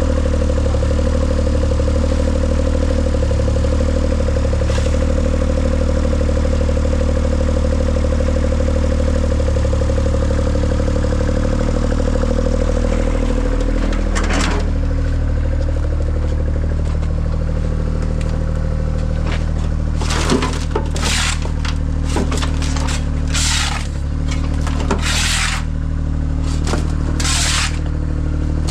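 An engine running steadily. About halfway through a scrape cuts in, and near the end a run of short scraping strokes comes over it.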